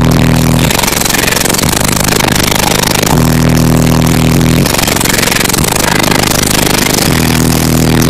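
Extremely loud bass from four 18-inch triple-stack Fi BTL subwoofers in a 4th-order enclosure, powered by two Crescendo BC5500 amplifiers, heard from inside the Jeep's cabin. Low bass notes are held for a second or more at a time and stop and start, with a distorted, rattling din over them.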